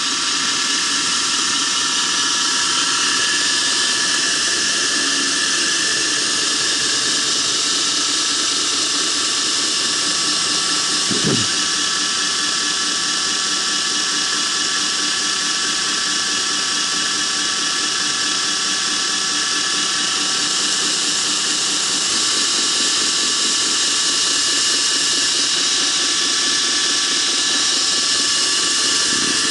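Belt grinder running steadily at speed, its abrasive belt turning over the wheels of a newly built center-pivot tracking arm: a steady whirring hiss with a constant high whine.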